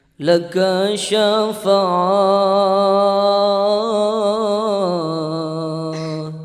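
A man chanting unaccompanied, holding long melodic notes with a slow waver. The chant drops to a lower held note about five seconds in and fades out near the end.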